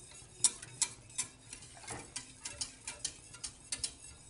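Wire whisk stirring white sauce in a steel saucepan, its wires clicking against the side of the pan about three times a second. The stirring is kept continuous so the milk and roux don't form lumps.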